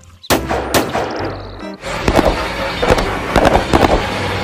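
Rifle gunfire from an AK-pattern rifle over background music: two sharp shots in the first second, then a run of shots about two or three a second from about two seconds in.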